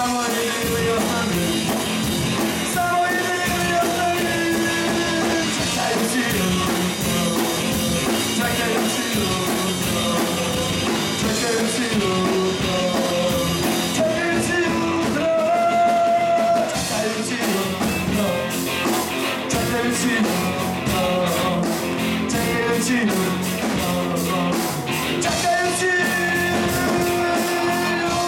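Live rock band playing a song, with a steady drum beat under held and sliding melodic notes.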